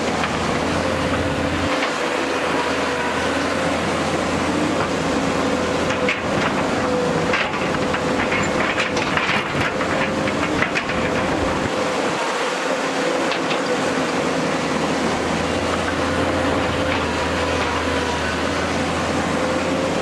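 JCB tracked excavator running under load with a steady whine, its bucket digging, scraping and dumping rocky soil. Stones clatter and knock through the middle stretch, about six to eleven seconds in.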